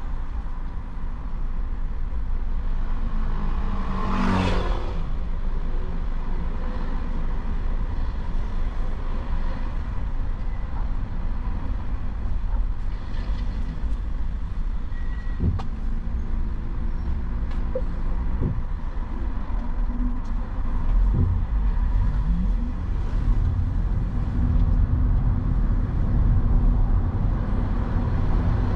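Steady low rumble of a moving road vehicle in traffic, with a brief swell of noise about four seconds in.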